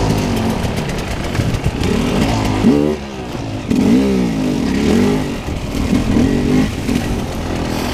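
Off-road dirt bike engines running, then one revving up and down several times in quick surges as it climbs a trail.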